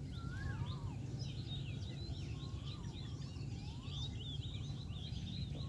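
Birds chirping: a dense twitter of short high chirps throughout, with a lower whistled note that rises and falls coming in several times, over a steady low background rumble.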